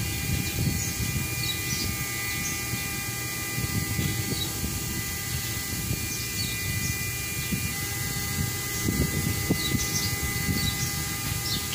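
Steady machine drone with an uneven low rumble and a constant high hum over it.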